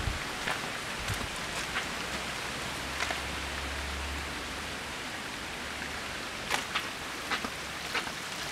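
Steady hiss of light rain falling on wet paving and puddles, with scattered faint ticks of drops. A brief low rumble comes about three to four seconds in.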